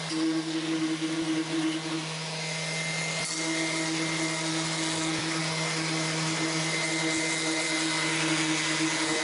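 A small motor running steadily: a constant hum with a higher tone that drops out and returns, and a hiss over it.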